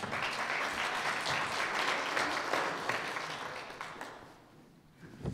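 Congregation applauding a guitar performance. The clapping starts at once as the music ends, then thins and dies away after about four seconds.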